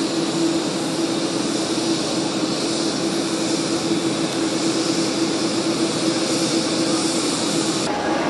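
Steady jet aircraft noise on an airport apron: an even rush with a steady hum under it and a high hiss that drops away abruptly near the end.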